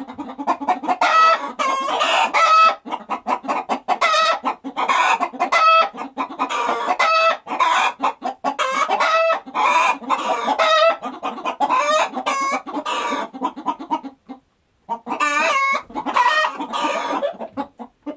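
Chickens clucking and squawking in rapid, nearly continuous calls, with a short break about fourteen seconds in.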